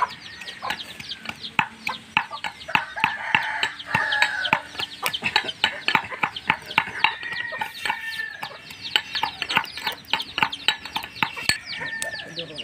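Chickens clucking busily: many short calls in quick succession, with a few longer drawn-out calls among them.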